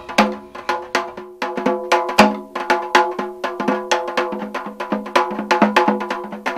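Percussion music: quick, uneven knocks with a ringing pitch, with one louder strike about two seconds in.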